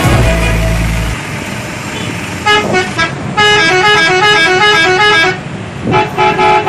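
A 'telolet' multi-tone bus horn playing a stepping melody: a short burst of tones about two and a half seconds in, a longer run of about two seconds, then a few short toots near the end, over street noise.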